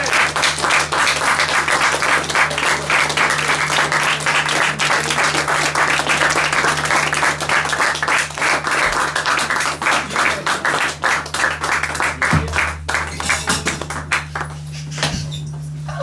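Audience applauding after a live set: dense, steady clapping that thins out near the end, with a steady low hum underneath.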